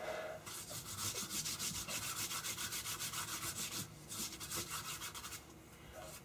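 Hand rubbing back and forth over a freshly glued thin paper cover sheet on a book board, in quick repeated strokes. The rubbing comes in two spells, with a brief pause about four seconds in.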